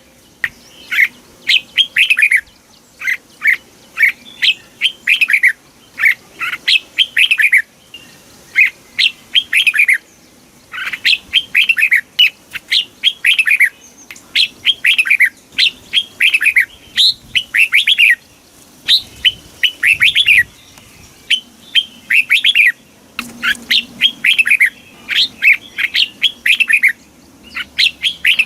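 Red-whiskered bulbul singing: short phrases of several quick, downward-sweeping whistled notes, repeated over and over with brief pauses between them.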